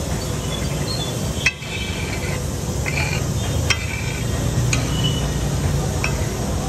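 A steel spatula scrapes and clanks on a large flat iron tawa while it stirs and chops kebabs into a hot, sizzling masala. About five sharp, ringing strikes come roughly a second apart, over a steady low rumble.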